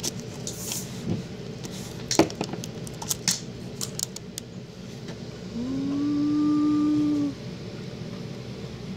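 Light clicks and taps of a stainless-steel dab nail and glass dab tool being handled. Then a steady low tone lasts nearly two seconds, rising slightly as it starts, and is the loudest sound.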